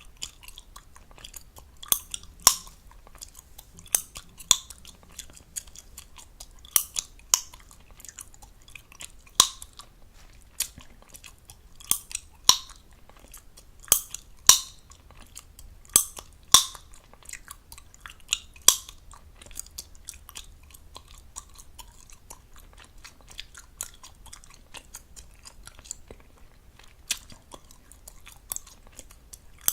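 Fast, close-up chewing of gum with wet smacking and sharp snapping pops. The loud pops come every second or two at first and thin out over the last third.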